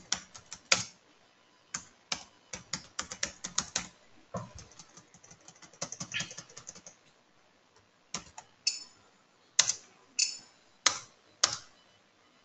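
Typing on a computer keyboard: quick runs of keystrokes in the first few seconds, then a few separate, sharper clicks spaced out over the second half.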